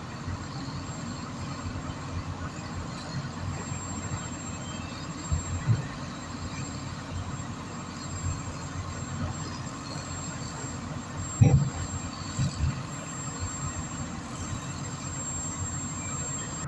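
Heavy diesel machinery, a truck and an excavator, running steadily at a work site. A few heavy thumps come through it, the loudest about two-thirds of the way in.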